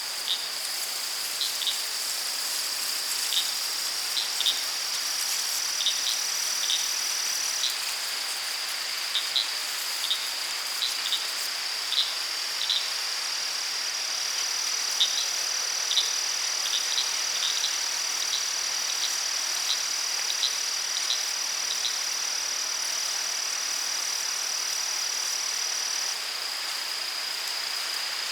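Daytime forest ambience dominated by an insect chorus: a steady high-pitched drone, with a second, slightly higher drone joining it for long stretches. Scattered short chirps come and go over it for about the first twenty seconds, then stop.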